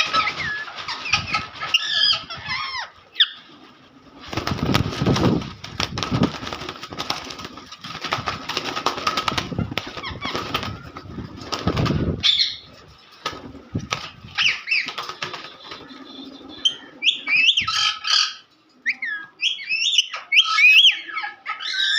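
Pet parrots calling with short, bending chirps and squawks. In the middle, a long stretch of wings flapping and rustling lasts about eight seconds, then the chirping picks up again and grows busier near the end.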